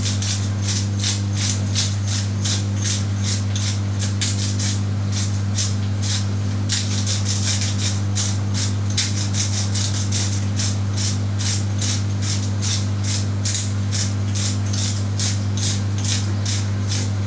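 Hand-twisted spice grinder being turned over a pan, giving a run of quick gritty clicks, several a second, with a short pause about six seconds in. A steady low hum runs underneath.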